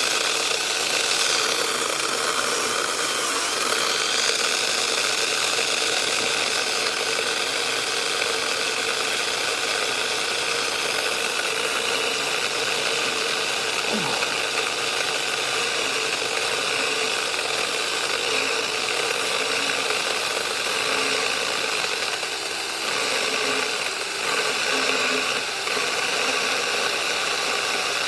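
Battery-powered 6-inch mini chainsaw running steadily under load as it cuts through a log about 4 inches thick.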